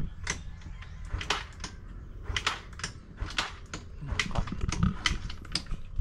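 Motor scooter being worked at as it fails to start: a run of irregular sharp clicks and knocks over a low rumble.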